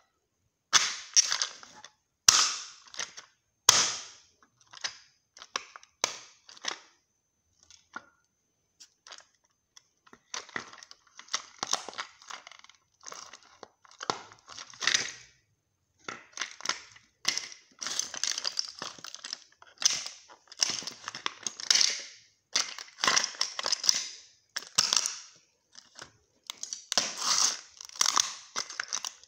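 Resin scale-model Honda Civic Type R cracking and snapping under bare feet. A few sharp snaps come in the first seconds, then a short lull, then crunching and crackling in bursts about once a second as the body breaks apart and flattens.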